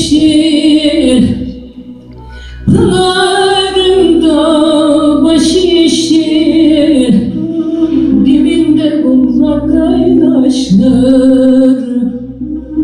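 A woman singing a Turkish folk song in the Arguvan style, drawing out long, wavering, ornamented notes. She breaks off about a second and a half in and comes back in about a second later.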